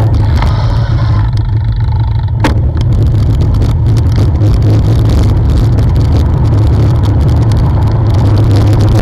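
Wind rushing over the microphone of a bicycle-mounted camera while riding: a loud, steady low rumble, with a broader rushing noise filling in from about three seconds in.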